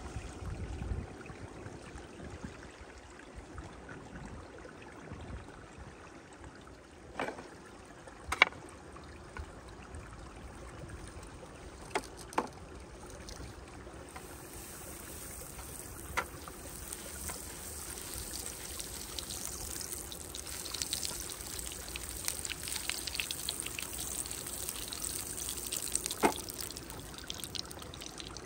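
Shallow stream trickling over rocks, growing a little louder and brighter in the second half. A few sharp knocks or clicks are scattered through it, the loudest about eight seconds in.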